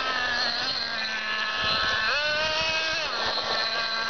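Radio-controlled buggy's motor buzzing at a low, steady pitch, then revving up steeply about two seconds in, holding high for about a second, dropping back, and revving up again at the end as the car accelerates down the street.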